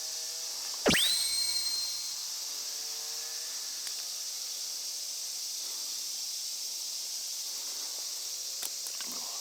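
Steady high drone of insects around a pond. About a second in, one sharp high whistle-like call falls quickly in pitch and then holds a steady tone for about a second.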